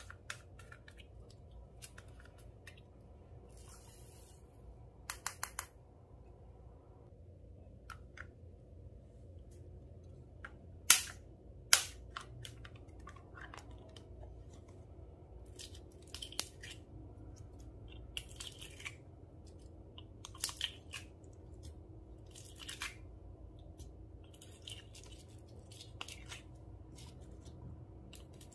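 Slime being worked by hand, giving sparse sticky clicks and crackling pops, with two sharp, louder snaps near the middle.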